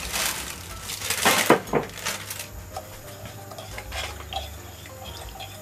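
Kitchen dishes and utensils being handled: clinks and knocks, the loudest few about a second and a half in, then fainter clatter.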